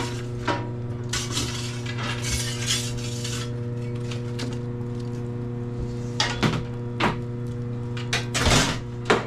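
Long-handled steel fire rake scraping and clanking on the floor of a wood-fired pizza oven as burning logs are pushed around the edge of the fire, with scattered metal clinks and knocks and the loudest scrape-and-clank near the end. A steady low hum runs underneath.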